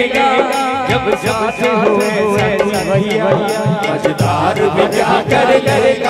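Hindi devotional bhajan sung live by a group of men into microphones, over a steady percussion beat.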